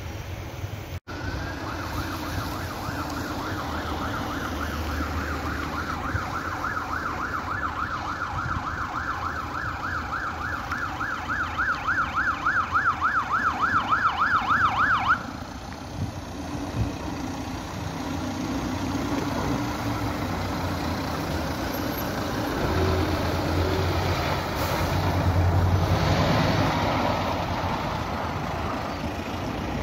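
Fire engine siren sounding a fast rising-and-falling yelp that grows louder as the truck approaches, then cuts off suddenly about halfway through. After it, the diesel engine of a heavy fire truck rumbles past close by.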